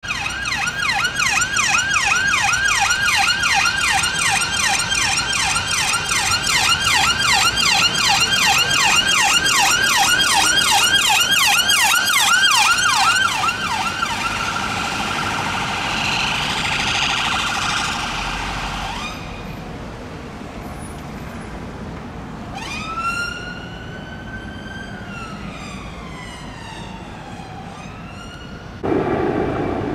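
Emergency-vehicle electronic sirens from London Ambulance Service response cars: a fast yelp of about three sweeps a second for the first half, then, after a cut, a slow wail that rises and falls once. Near the end a louder steady low rumble cuts in.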